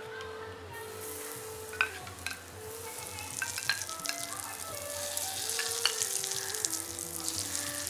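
Hot ghee sizzling as it is poured onto wheat flour in a glass bowl, the flour frothing where the hot fat hits. The hiss starts about a second in and gets louder through the second half. Soft background music with long held notes runs underneath.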